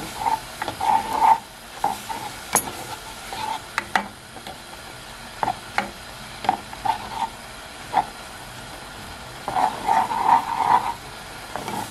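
A spoon stirring oats simmering in milk in a stone-coated non-stick frying pan, scraping in short bouts near the start and again near the end, with a few sharp knocks in between.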